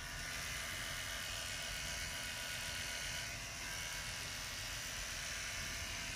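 Electric hair clippers running steadily as they shave a man's head.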